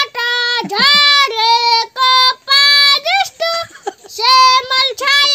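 A child singing unaccompanied, one high voice holding long steady notes phrase by phrase with short breaks between them.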